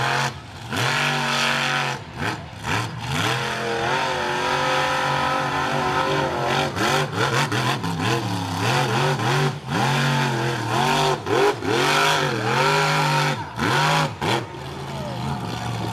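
Monster truck engine revving hard again and again, its pitch swooping up and down with each burst of throttle, with several abrupt breaks in the sound.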